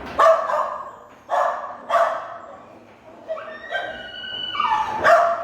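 Shelter dogs barking in a kennel room: several sharp barks in the first two seconds and another near the end, with a drawn-out, pitch-stepping whine in between.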